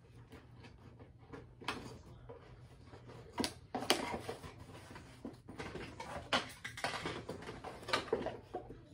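Cardboard and plastic doll packaging being handled and pulled apart by hand: irregular rustling and scraping with sharp crinkly clicks, busiest from about four seconds in.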